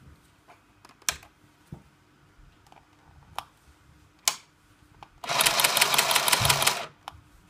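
Hello Kitty toy chainstitch sewing machine running briefly, about a second and a half near the end, with a fast, even mechanical rattle of the stitching mechanism, roughly nine strokes a second. A few sharp single clicks come before it.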